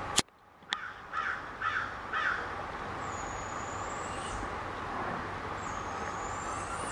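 A crow cawing three times in quick succession, after a sharp click at the very start. Later come two thin, high drawn-out whistles.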